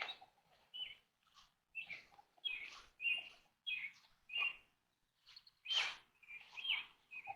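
A small bird chirping over and over, with short sharp chirps about every half second and a brief pause midway.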